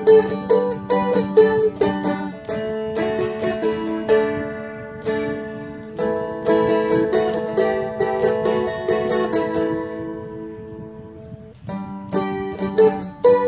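Seagull Merlin M4, a four-string strum-stick dulcimer, played solo through the chorus of a folk song: a picked melody over steady ringing drone strings. About ten seconds in the notes are left to ring and fade, then the playing picks up again near the end.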